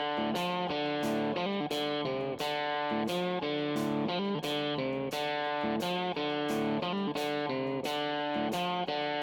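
Background music: guitar playing a steady rhythm of picked notes.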